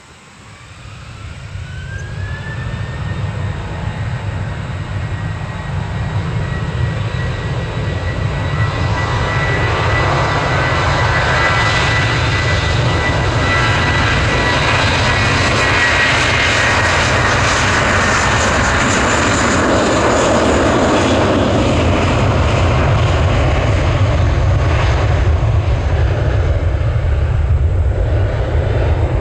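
Jet airliner engines spooling up: a whine rises in pitch over the first few seconds and then holds, while a heavy roar builds over several seconds and stays loud and steady, typical of engines run up to takeoff thrust.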